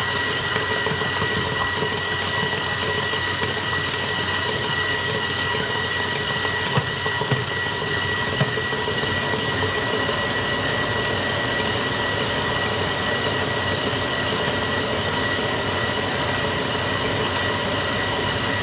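Electric stand mixer running at a steady speed, its beater whipping cake batter while beaten egg is poured in. The motor gives an even hum with a thin high whine, and there are a few light clicks around the middle.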